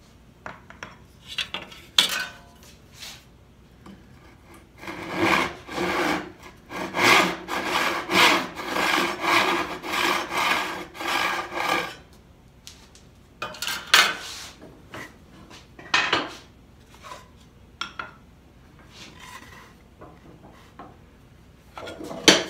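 Hand crosscut saw cutting across a maple board: a run of even strokes, about two a second, starting about five seconds in and lasting some seven seconds. The cut stays just off the line, leaving waste to be pared away by chisel. Scattered knocks of wood and tools being handled come before and after it, the sharpest one near the end.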